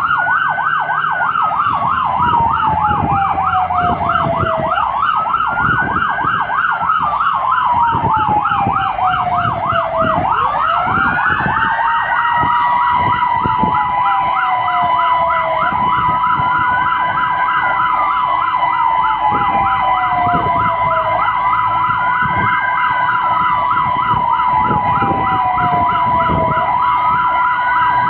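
Fire engine sirens heard from inside the cab. A fast yelp and a slow wail, rising and falling about every five seconds, run together. About ten seconds in, a steady high tone swoops up quickly and then holds one pitch.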